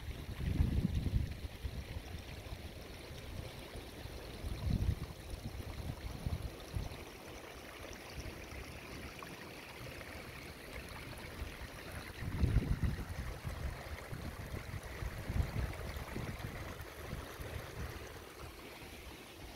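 Muddy rainwater running and trickling through a flooded roadside ditch after heavy rain. Wind gusts buffet the microphone several times.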